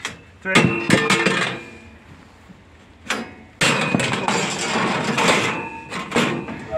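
Steel G-clamps and a steel strapping band clanking and scraping against the steel-channel frame of a wood-bending jig as they are taken off. There is a ringing clatter about half a second in, a sharp click near three seconds, then a longer run of metal scraping and clanking until near the end.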